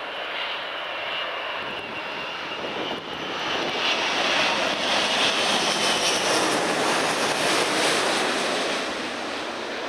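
Emirates Airbus A380's four Engine Alliance GP7200 turbofans on landing approach: a jet roar with a thin high whine that swells as the airliner passes low overhead. It is loudest from about four to eight seconds in, then begins to fade.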